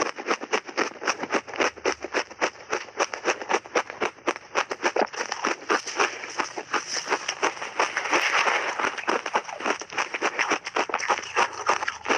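Close-miked crunching of shaved ice coated in buckwheat powder, bitten off in big chunks and chewed: a rapid, unbroken stream of crisp crunches.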